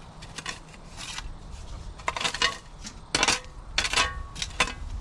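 A handful of sharp metallic clinks and scrapes, the loudest in the second half, a couple of them ringing briefly like metal striking metal or stone.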